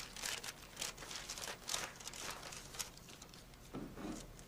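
Faint, irregular rustling and light scraping of hands rummaging through cookies in a clear plastic display case.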